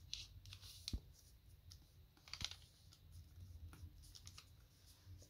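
Faint paper rustling with a few short clicks as a sheet of origami paper is folded and creased flat by hand; the sharpest clicks come about a second in and about two and a half seconds in.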